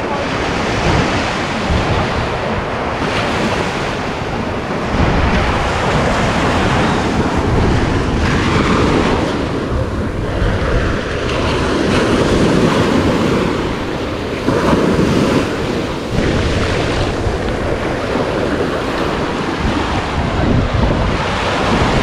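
Surf breaking and washing up the wet sand at the water's edge, swelling louder as each wave runs in, with wind rumbling on the microphone.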